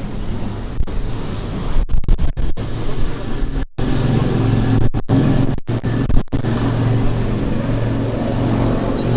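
Electric tram running along a street: a steady rumble with a low motor hum. The sound cuts out for an instant several times in the middle.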